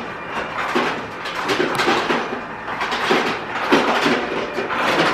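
Refrigerator door ice dispenser running, ice cubes clattering out of it in a continuous, irregular rattle.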